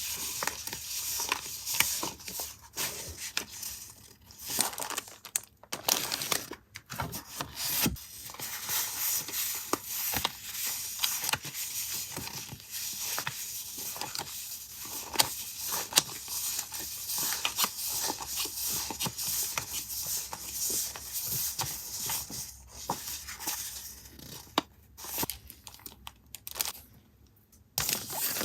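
Paper being handled for a journal collage: rustling, rubbing and tearing, with many small sharp clicks and taps scattered throughout.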